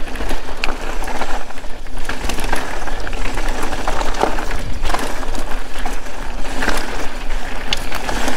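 Mountain bike descending loose rocky singletrack at speed: tyres crunching and skittering over loose marble-like stones, with a steady rushing noise and many irregular sharp clicks and knocks as the bike rattles over the rocks.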